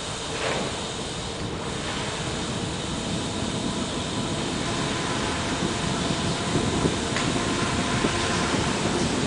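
Steady rushing noise of a bicycle ride through a rock tunnel on a wet road: tyre hiss and wind on the microphone, growing a little louder toward the end.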